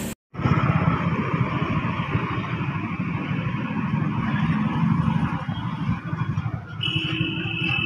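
Motorcycle engine running while riding through city traffic, with road and wind noise, starting after a brief silence. A steady high-pitched tone sounds for about a second near the end.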